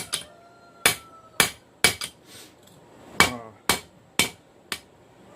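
Hand hammer striking hot rail steel on an anvil, drawing out a taper: about ten sharp blows in two runs with a short pause between, some followed by a brief metallic ring.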